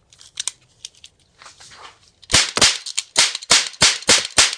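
A rapid string of sharp, loud bangs: a few small cracks at first, then about eight loud bangs in quick succession over roughly two and a half seconds, from about halfway in.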